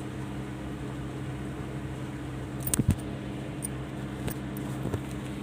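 Steady low mechanical hum, like a fan or appliance motor. A few sharp knocks or clicks come through it, the loudest pair about three seconds in.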